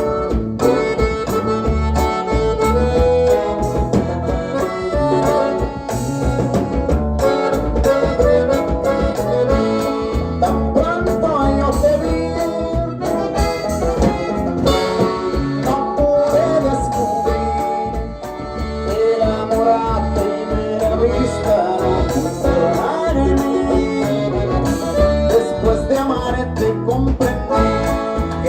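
A live band playing a Latin dance tune with a steady beat, heard through the stage sound system during a sound check.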